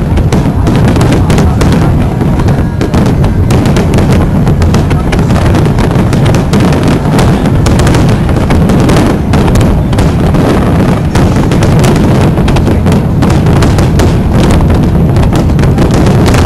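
Harbour fireworks display at full intensity: a dense, continuous barrage of rapid bangs and crackling bursts with no let-up.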